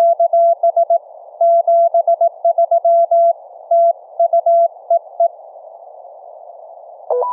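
Morse code (CW) at about 35 words per minute, a single steady tone keyed in dots and dashes, heard through an FRS walkie-talkie over a faint hiss. The keying stops about five seconds in while the hiss carries on. Near the end the radio gives a short two-pitch tail beep, low then high, as the transmitter unkeys.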